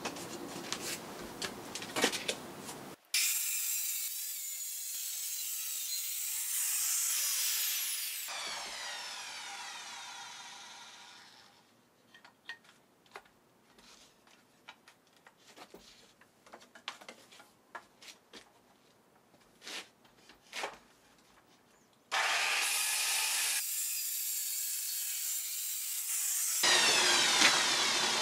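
Handheld circular saw ripping through a thick rough board in separate passes, the blade's whine sloping down as it winds down after a cut. Between cuts there are several seconds of quiet with scattered light clicks and knocks as the saw and board are handled.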